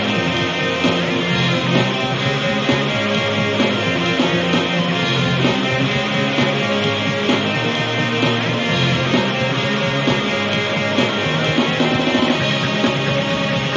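Loud, dense guitar-driven rock music, with a bass line moving underneath.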